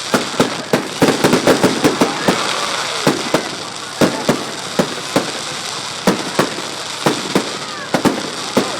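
Fireworks display: a rapid string of sharp bangs and pops, thickest about a second in, then bangs every half second or so over a steady crackling hiss.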